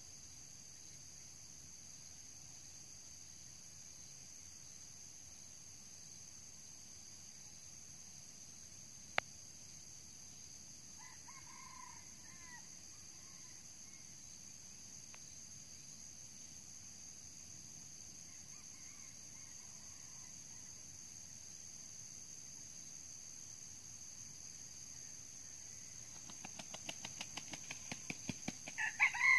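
Steady high insect drone, with a red junglefowl calling faintly about 11 seconds in and a single sharp click a little before. Near the end comes a quick run of short beats, about five a second, then a louder red junglefowl rooster call.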